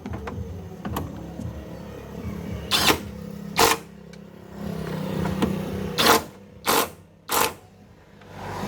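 Steady low mechanical hum with light ticking, broken by five short, loud bursts of hiss spread through the middle and second half.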